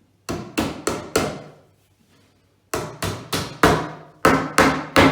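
Hammer knocking the wooden parts of a flat-pack drawer together: four quick strikes, a pause of about a second and a half, then a longer run of strikes at about three a second, each with a short ring.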